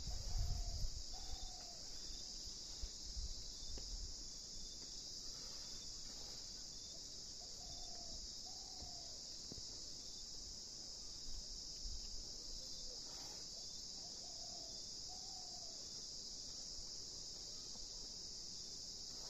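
Steady, high-pitched insect chorus. Three times, a pair of short, lower calls from another animal sounds over it, and there is a brief low rumble at the very start.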